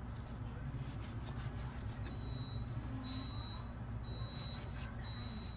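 An electronic beeper sounding a high, steady beep about half a second long, once a second, starting about two seconds in, over a steady low hum.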